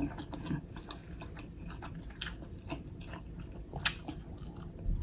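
Close-miked chewing and biting of food, with wet mouth clicks scattered through, the sharpest about two and four seconds in.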